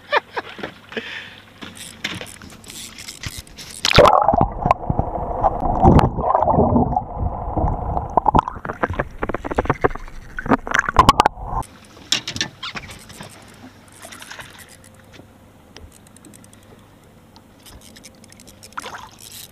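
Water gurgling and sloshing around a camera held at and under the surface. It is loud and muffled from about four seconds in and cuts off suddenly near the middle, leaving light splashes and clicks.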